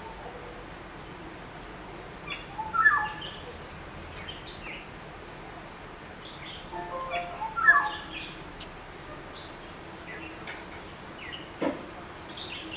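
Black-hooded oriole calling: two short loud phrases of a few falling notes, about four to five seconds apart. Faint high chirps and a steady thin high-pitched tone run behind them.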